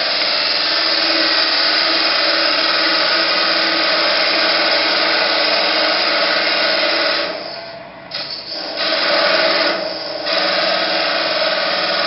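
Wood being cut on a spinning JET mini lathe: a turning tool held against the whistle blank, cutting a relief down to the drilled holes. It makes a steady, loud cutting noise that eases off briefly twice, a little over seven seconds in and again near ten seconds, as the tool comes off the wood.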